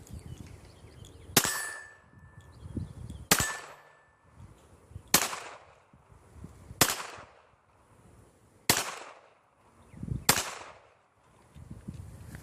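Six shots from a Glock 42 pistol in .380 ACP, fired at a slow, steady pace about one every one and a half to two seconds, each a sharp crack with a short ringing tail.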